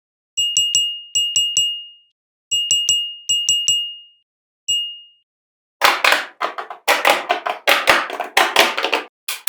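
A high, bright ding chime struck in four quick triplets and then once more. After that comes a dense run of irregular crackling, rustling noise.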